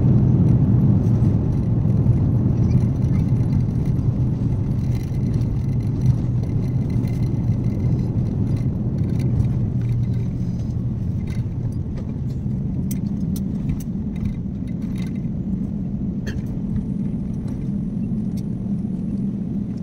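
Jet airliner cabin noise during the landing rollout: a steady low rumble of engines and wheels on the runway, easing off as the aircraft slows, with scattered small rattles in the cabin.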